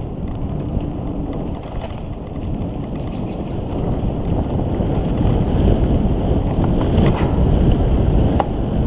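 Mountain bike riding fast down a dirt trail: wind rushing over the microphone and tyres rolling over the dirt, with scattered clicks and rattles from the bike. It grows louder about halfway through as the speed picks up.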